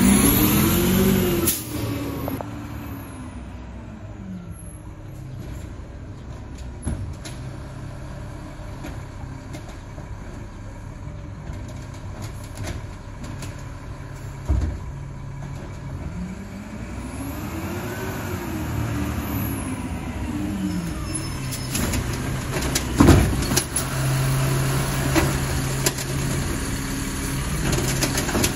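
Engine of an Autocar ACX refuse truck with an Amrep side-loader body, revving up with a rise and fall in pitch as it pulls away, then running more quietly at a distance. It revs up again as it comes back and pulls in close, with a sudden sharp burst as it stops, and runs steadily near the end.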